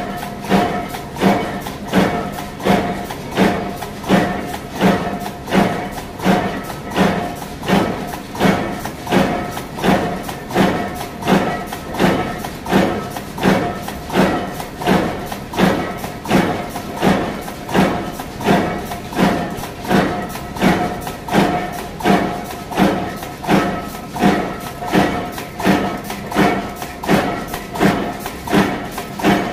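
Power press stamping cycle chain plates from steel strip fed by a pneumatic feeder: a regular thud about one and a half times a second over a steady machine hum.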